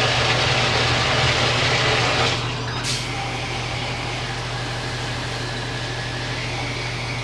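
Shower running: a steady hiss of spraying water over a steady low hum, dropping a little in level about two seconds in, with a brief click shortly after.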